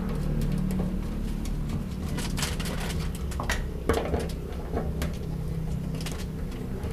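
Socket wrench turning the bolts of a fuel pump flange on a steel fuel tank, giving irregular sharp clicks and light metal taps, thickest a couple of seconds in and again near the end.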